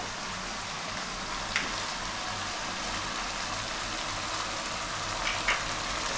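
Thick buro sauce with garlic sizzling steadily in a frying pan on a gas stove, with a light click about a second and a half in and two more near the end.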